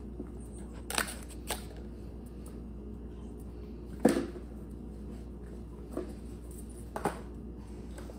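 Scattered sharp clicks and knocks from a small dog moving on a tile floor and nudging small toy items, the loudest a knock about four seconds in, over a steady low hum.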